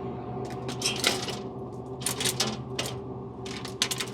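Irregular runs of sharp clicks and rattles as a vending machine is restocked by hand, over a steady low hum.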